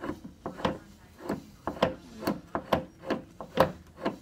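A dog scratching at its bedding to make it comfortable: a quick run of short, rhythmic scratching strokes, about two or three a second.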